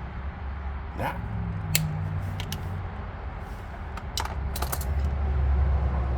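Scattered sharp little clicks and taps of tools and small parts being handled during wiring work, in two clusters, over a steady low rumble that grows louder in the second half.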